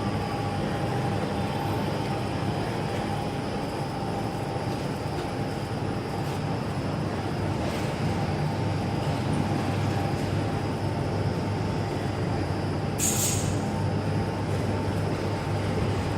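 Plastic bag cutting and sealing machine running steadily: a constant mechanical hum with a held mid-pitched tone, and a brief high hiss about three-quarters of the way through.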